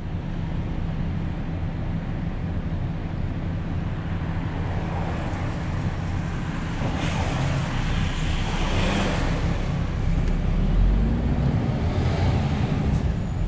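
Lorry's diesel engine running steadily at low revs, with a rushing noise that swells and fades between about seven and ten seconds in.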